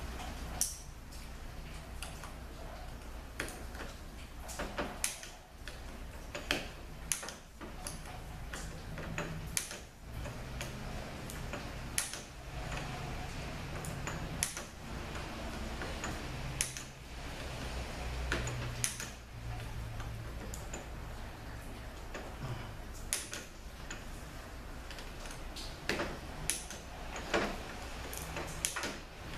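Sharp, separate metal clicks, irregularly spaced about a second apart, from a hand socket wrench turning and torquing bolts to about 105 inch-pounds, over a low steady hum.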